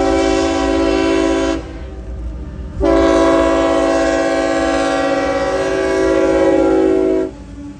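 Diesel locomotive's chime air horn blowing: one blast ends about a second and a half in, then a second, longer blast of about four and a half seconds, several steady tones at once, over the low rumble of the train.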